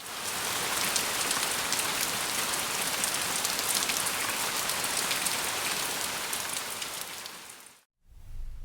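Steady rain falling, a dense hiss with many fine, sharp drop ticks, fading out about a second before the end.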